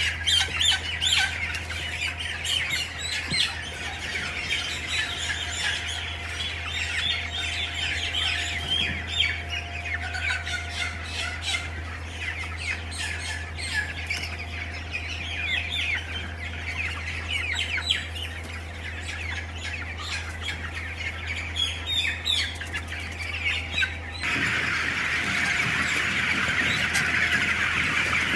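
A crowd of newly hatched chicks peeping continuously over a low steady hum. About 24 seconds in it cuts to a louder, denser chorus of peeping.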